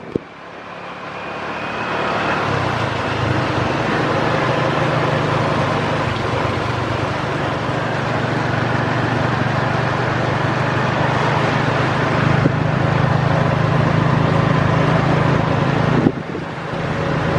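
Motor vehicle running steadily in traffic: a low, even engine hum under a hiss of road and rain noise. It dips out briefly about sixteen seconds in.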